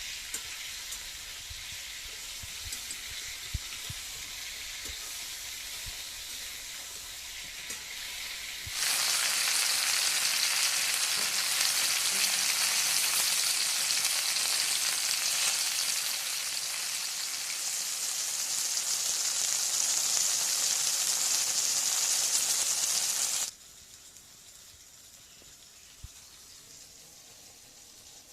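Fish frying in hot oil in a pan, sizzling steadily. About nine seconds in the sizzle abruptly becomes much louder, and near the end it drops just as abruptly to a faint hiss.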